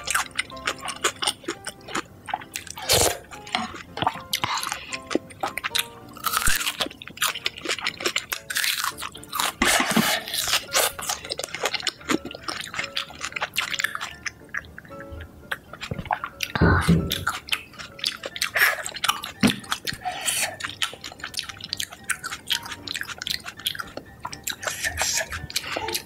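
Close-up chewing and crunching of food, many short crisp bites and mouth sounds, over background music.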